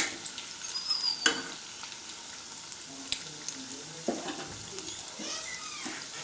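Wheat-batter-coated susiyam frying in oil on a low flame, a steady sizzle, with a utensil clicking against the pan a few times as the balls are turned.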